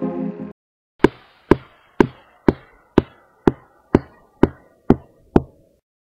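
Music cuts off about half a second in, followed by ten hard footsteps evenly spaced at about two a second, each fading quickly, laid in as a sound effect for a walking figure.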